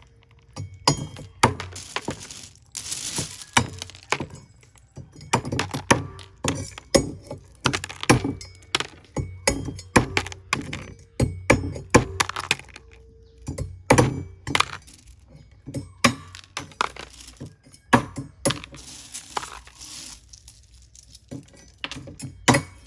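Cleaver chopping the pointed tips off sea snail shells on a wooden chopping block: repeated sharp chops with the crack of breaking shell, one or two a second at an uneven pace.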